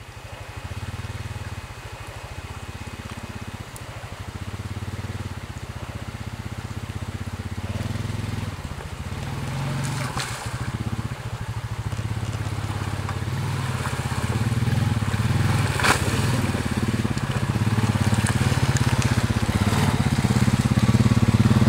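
ATV engine running steadily while riding, slowly getting louder toward the end, with a couple of sharp knocks about ten and sixteen seconds in.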